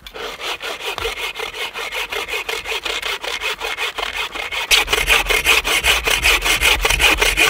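Agawa Canyon Boreal 21 folding bow saw cutting through a dead fallen log in quick, even back-and-forth strokes, growing louder about halfway through.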